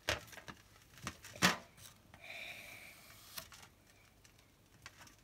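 A small plastic scoop digging moulding sand out of a plastic toy capsule: a few light clicks and scrapes of plastic on plastic, the sharpest about one and a half seconds in, with a brief faint high tone a little after two seconds.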